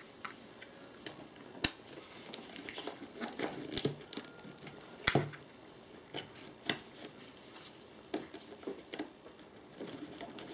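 Hands handling and fitting small brass corner brackets onto a box: light rustling with a few sharp metallic clicks, the loudest about five seconds in.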